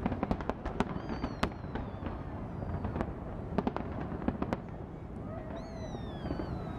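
Fireworks display: a fast run of sharp bangs and crackling pops, with two high whistles that fall in pitch, one about a second in and one near the end.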